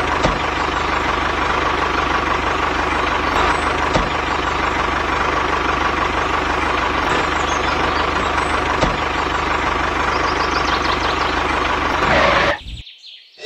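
DIY mini toy tractor running steadily while pulling a small trailer, with a constant whine over a fine, even engine-like pulsing. It cuts off suddenly shortly before the end.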